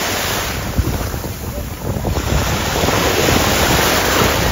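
Sea surf washing at the shoreline with wind buffeting the microphone, the rush growing louder in the second half.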